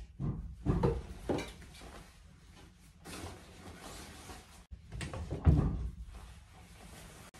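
A shirt rustling as it is pulled on over the arms and shoulders, with several dull knocks and thumps from the handling, the loudest about five and a half seconds in.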